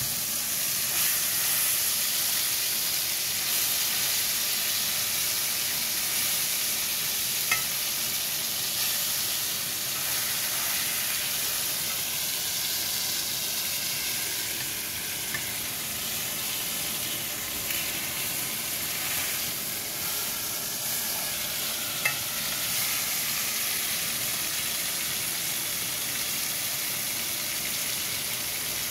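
Whole tomatoes sizzling steadily in hot oil in a frying pan, with a few sharp clicks of a slotted spatula against the pan as they are turned; the loudest clicks come about 7 and 22 seconds in.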